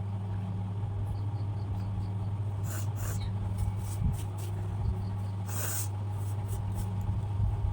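A person sniffing powder up the nose to bring on sneezing: two short, sharp sniffs, about three seconds in and near six seconds, over a steady low hum.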